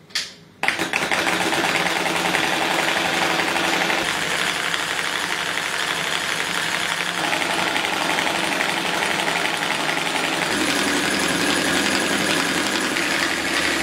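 Homemade four-coil V-type solenoid engine running fast: a steady, rapid mechanical clatter from its plungers and crankshaft, starting about half a second in, its tone shifting a few times.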